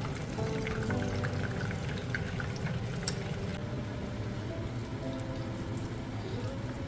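Soft instrumental music over a steady crackling hiss.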